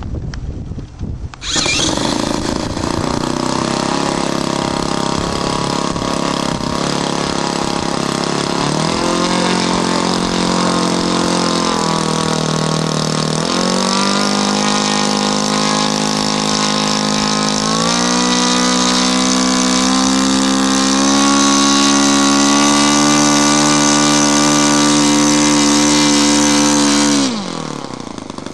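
Cessna 152's four-cylinder Lycoming piston engine catching about a second and a half in, then running up in pitch in three steps as the throttle is opened. Near the end it drops sharply back to a lower idle.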